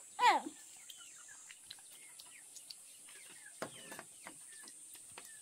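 Rural ambience of birds chirping with short downward chirps, light scattered clicks and a steady high hiss. A loud, short falling cry comes just after the start, and a quieter one comes a little past halfway.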